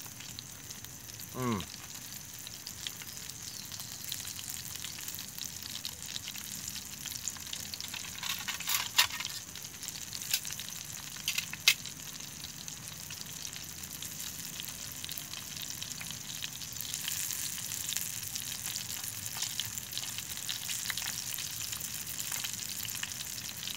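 Boga fish fillet frying in oil in a stainless steel mess-kit pan: a steady sizzle and crackle, with a few sharp clicks a little before the middle.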